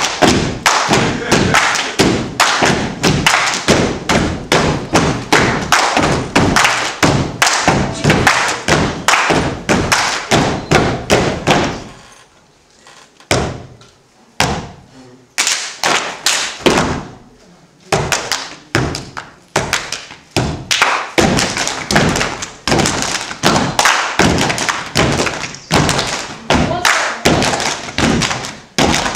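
A step dance team stepping in unison: rhythmic foot stomps and hand claps on a stage floor, in quick repeated patterns. The stepping thins out for a few seconds about halfway through, while the dancers regroup, then picks up again.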